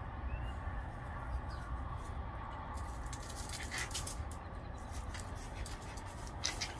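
Two dogs scuffling in play: soft rustling and a few light ticks and scratches, loudest near the middle and again near the end, over a steady low rumble.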